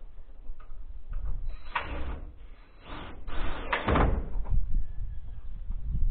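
Steel profiled sheeting being worked and fastened under the eaves: four short scraping, rattling noises in quick succession about one and a half to four seconds in, over a steady low rumble of wind on the microphone.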